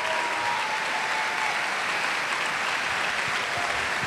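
Large audience applauding steadily, many hands clapping together.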